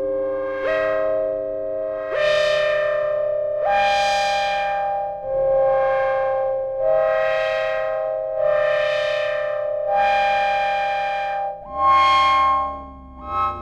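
Arturia MicroFreak synthesizer playing a sustained preset: held notes over a low drone, stepping to new pitches every second or two, with repeated swells that brighten and fade, and short falling pitch glides near the end.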